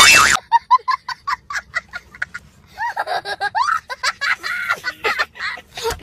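A loud noise cuts off about half a second in, followed by high-pitched giggling laughter in a quick run of short bursts.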